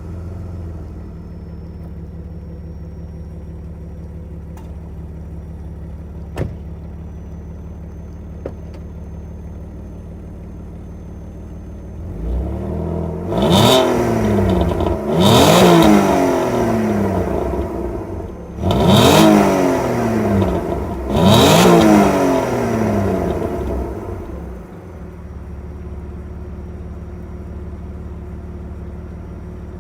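Alfa Romeo GT's 3.2-litre Busso V6 on its stock exhaust, idling steadily just after starting. About twelve seconds in it is revved four times in quick blips, each climbing in pitch and falling back. It then settles back to a steady idle.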